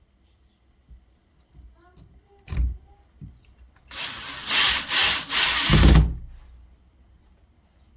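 Power drill running for about two seconds, its whine wavering in speed, after a single knock a couple of seconds earlier.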